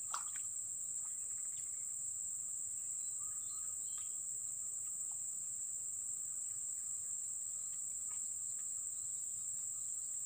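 Steady high-pitched chirring of insects, one continuous unbroken drone.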